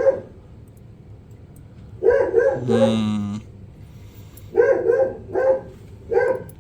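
A dog barking repeatedly, the short barks often coming in quick pairs.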